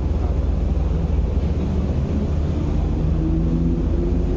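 Harbour ferry's diesel engine idling alongside the pier: a steady, deep rumble.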